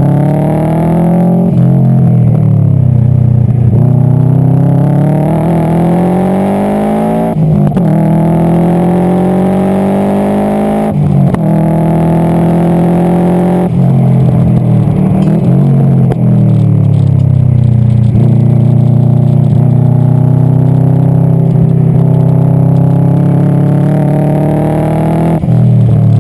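Subaru Impreza STI GC8's turbocharged flat-four engine under hard acceleration, running with an exhaust leak: the pitch climbs steadily and drops sharply at each gear change about 7, 11 and 14 seconds in, falls away for a few seconds, then climbs again.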